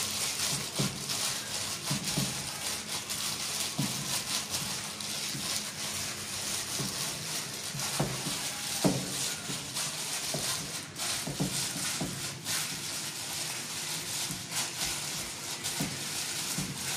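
Gloved hand kneading minced fish paste in a pot: a continuous run of wet squelches and plastic-glove rustling, with occasional louder knocks.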